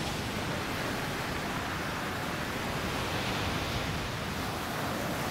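Ocean surf breaking and washing over the shore, a steady rush of churning water.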